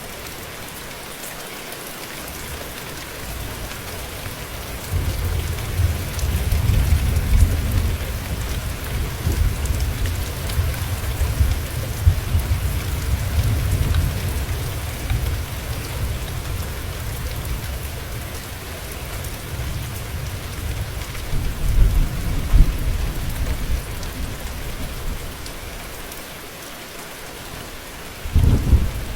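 Steady rain hissing down, with low rolling thunder that builds about five seconds in, rumbles on for most of the stretch, fades out near the end and starts again just before it closes.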